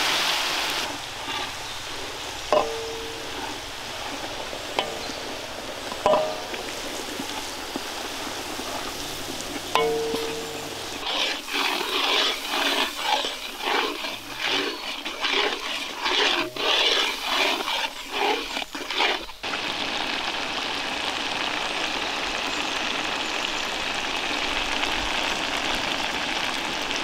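Garlic paste and spices frying in hot oil in a metal kadai: a loud sizzle as the paste goes in, then a steady sizzle. A metal spatula clinks against the pan a few times, with a stretch of quick stirring and scraping midway, and it ends in an even sizzle as the red masala bubbles.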